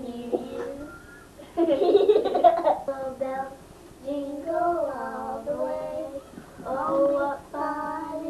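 Two young girls singing a Christmas carol together, with a louder, rougher burst of voice about two seconds in.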